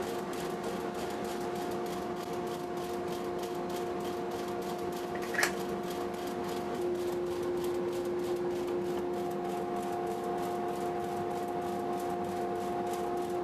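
A steady mechanical hum made of a few held tones, which shift slightly around seven and nine seconds in, with a single sharp click about five and a half seconds in.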